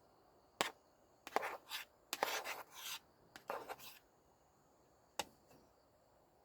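Objects being handled: a sharp click, then a run of short scraping rubs and knocks over about three seconds, and another sharp click near the end.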